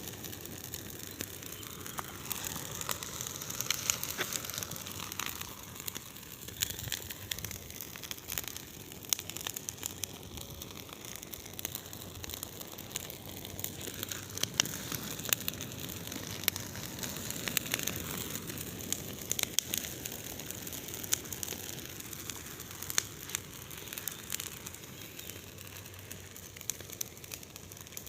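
Large bonfire burning: a steady rush of flames with many sharp, irregular crackles and pops of burning wood.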